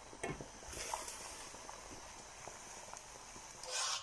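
Steady hiss of water simmering and steaming under a plate in an open pan, with a few light knocks of the plate and pan being handled. A short, louder burst of noise comes near the end.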